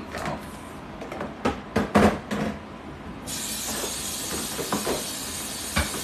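Clear plastic steamer baskets and lid knocking and clattering against a stainless-steel sink as they are handled, then a kitchen faucet turned on about three seconds in, its water running steadily onto the plastic.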